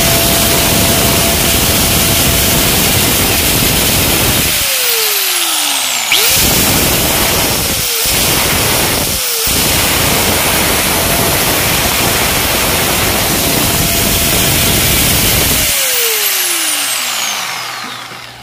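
Bosch GWS 7-100 angle grinder running free on test after its armature and carbon brushes were serviced, its power restored. About four and a half seconds in it is switched off and its pitch falls as it coasts down. It is started again with a rising whine, cut off and on twice in quick succession, and near the end switched off and spins down.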